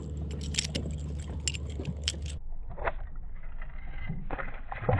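Sharp metal clicks and light rattling of fishing pliers working a hook free from a hooked fish at the boat's side, over a low steady hum. About two and a half seconds in, the hum and the sharp clicks stop abruptly. After that come scattered soft knocks and one thump near the end.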